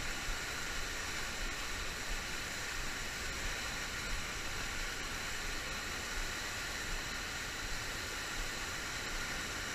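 Steady rushing of whitewater pouring over a low-head dam and churning below it.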